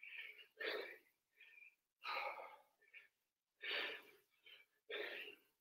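A man breathing hard under exertion in short, forceful puffs, about one every second and a half, as he works through dumbbell reps.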